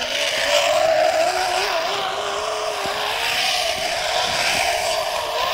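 Zip-line trolley pulleys running along the steel cable: a steady whine that wavers slightly in pitch, over a rushing hiss.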